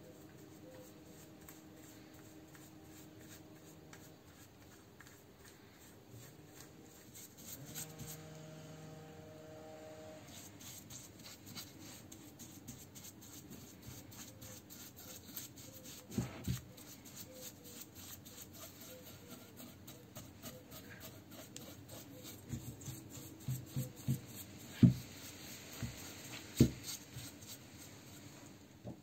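A small stiff brush scrubbing a cast-iron brake master cylinder and its piston parts: a fast, scratchy rubbing of bristles on metal. A few sharp knocks come in the second half as the cylinder is moved on the bench, the loudest near the end.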